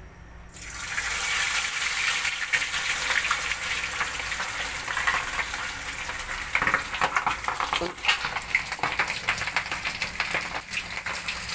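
Whole stuffed milkfish frying in hot oil in a stainless steel wok. A sizzle starts suddenly about half a second in as the fish goes into the oil, then goes on as steady crackling and spitting.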